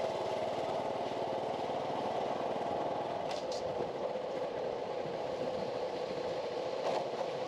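A small engine running steadily at low revs, its pitch easing slightly lower partway through. Two faint ticks come about three seconds in.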